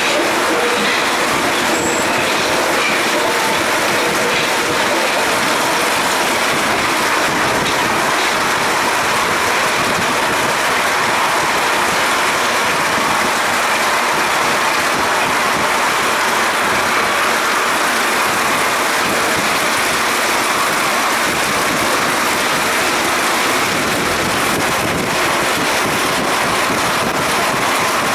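Paris Métro MP05 rubber-tyred train running at speed through a tunnel, heard from the cab: a steady, even rolling noise that holds the same level throughout.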